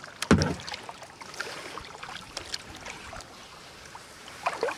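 Kayak paddling: water splashing and dripping from the paddle blades, with a louder thump just after the start.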